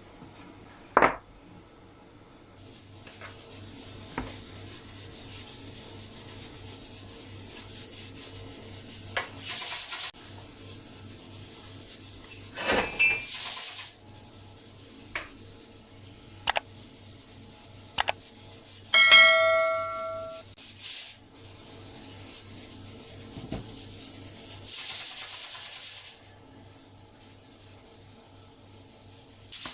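Steady rubbing and sanding noise on wood at a workbench, broken by scattered sharp knocks and clicks of tools and wooden pieces. About two-thirds of the way through, a metal object rings briefly.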